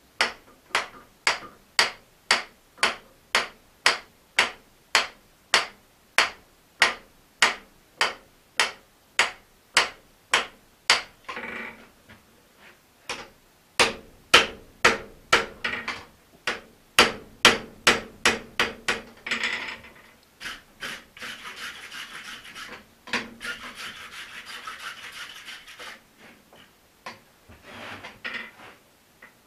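Blacksmith's hand hammer striking a red-hot steel axe head on the anvil, about two blows a second, forging the axe to its final shape. After a short pause comes a quicker run of blows, then a few seconds of steady scraping near the end and a couple more blows.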